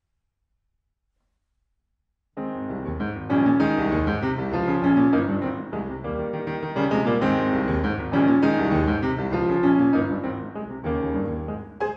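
Silence, then a Steinway concert grand piano starts abruptly a little over two seconds in and plays a solo piece in full chords.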